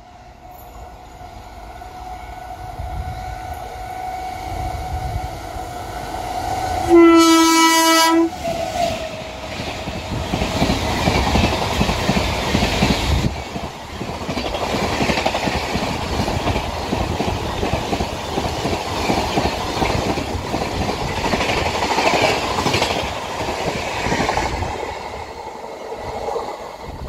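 Indian Railways WAP-7 electric locomotive and its LHB coaches passing through a station at about 121 km/h. A rising hum builds as the train approaches, then comes one horn blast of just over a second, about seven seconds in. The coaches then rush past with rapid clickety-clack over the rail joints, and the sound fades near the end.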